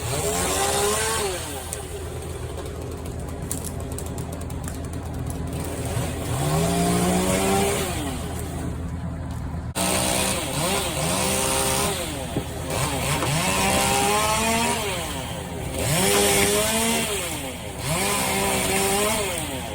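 Two-stroke chainsaw being revved up and cut back again and again as it cuts into a tree, each rev rising in pitch and then dropping, about eight times. A steady low engine hum runs underneath.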